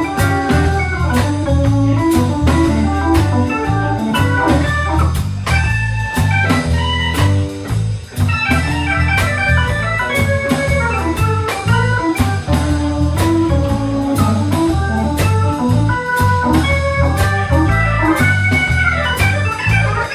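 A live band plays an instrumental passage: an organ-voiced electric keyboard carries the melody over a steady drum beat, bass guitar and electric guitar.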